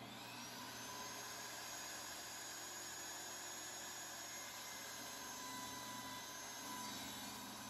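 Delta 36-6013 10-inch job-site table saw's motor and blade spinning up, with a whine that rises over the first second, then running steadily at speed.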